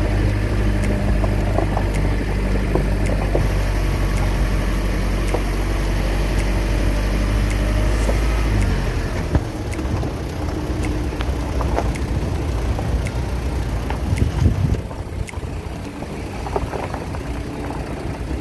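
A vehicle engine running steadily with a low, even hum. About halfway through, the hum drops away and gives way to a rougher, noisier rumble.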